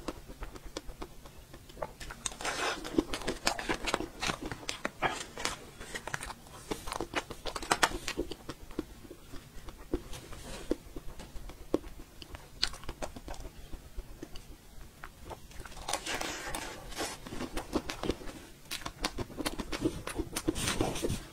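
Close-miked eating sounds of blue mousse cake: chewing and small mouth clicks and smacks in several bursts, with short pauses between.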